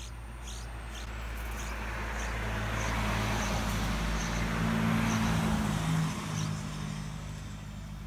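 A motor vehicle passing nearby, its engine hum and road noise swelling to a peak about five or six seconds in and then fading. Thin high chirps repeat at short intervals over the first part, the begging calls of a yellow-vented bulbul chick.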